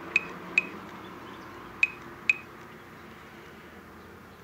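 Four short, sharp button clicks, each with a brief high beep, as keys on an automotive diagnostic scan tool are pressed to move through its menus.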